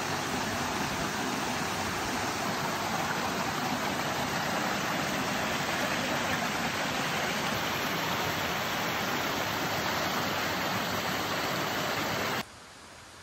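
Rushing water of a waterfall, a steady dense roar that cuts off abruptly near the end.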